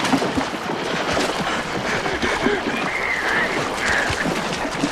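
Film sound of a large shark thrashing onto a boat's stern: a dense din of water splashing with many knocks and thuds, and a short cry rising and falling a couple of times near the middle.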